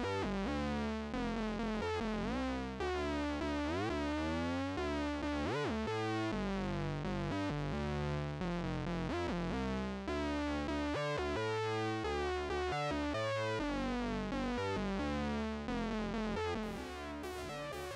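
Modal Cobalt8X synthesizer playing a sequenced note pattern on a hard-synced sawtooth patch. Its robotic, vowel-like tone keeps sweeping up and down as the sync is modulated, and it gets somewhat quieter near the end.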